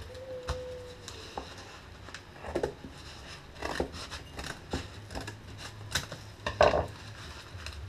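Scissors cutting open a paper-wrapped package: irregular snips and clicks, the loudest about six and a half seconds in.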